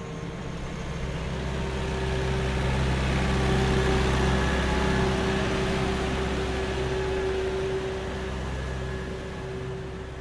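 A steady mechanical hum with a rushing noise that swells to its loudest about four seconds in, then slowly fades away.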